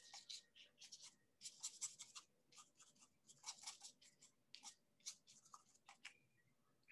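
Paintbrush scrubbing and dabbing black paint onto sketch-pad paper: a faint, irregular run of short scratchy strokes.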